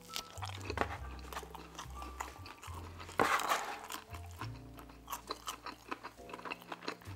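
Close-miked biting and chewing of a mouthful of stuffed-crust pepperoni pizza, with many short wet smacking clicks, over soft background music with held bass notes. A louder noisy burst comes about three seconds in.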